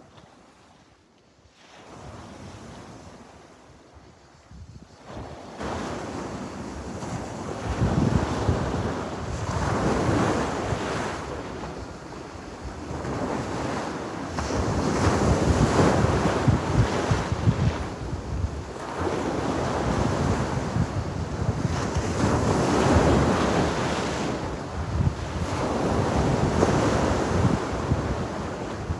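Sea waves breaking and washing on the shore, fading up over the first few seconds and then rising and falling in repeated swells of surf.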